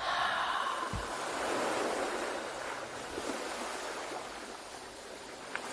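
Ocean waves washing onto a shore in a steady surf soundscape. A wave surges in at the start, then the wash swells and ebbs.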